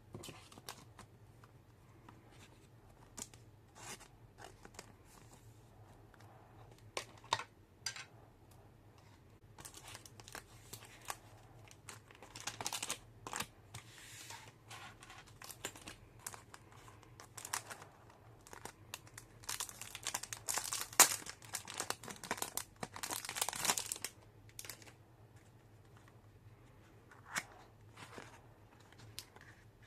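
Packaging being torn open and crinkled by hand: scattered short crackles and clicks, with a louder, busier stretch a little after ten seconds and a longer one around twenty seconds in.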